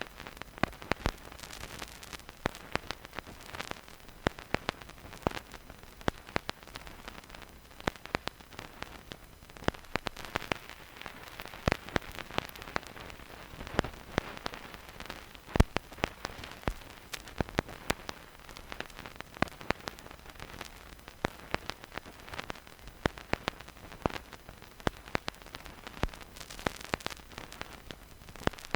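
Vinyl record surface noise with no music: a faint steady hiss under dense, irregular crackles and sharp pops from the stylus in the groove, with a few louder pops such as one about halfway through.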